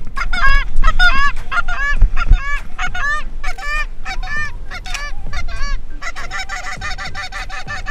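Canada geese honking and clucking, a rapid run of calls that becomes many overlapping calls near the end.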